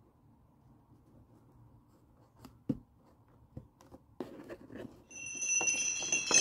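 A few faint taps and a short rustle of fingers handling a cardboard gift box. About five seconds in, background music with high chiming tones fades in.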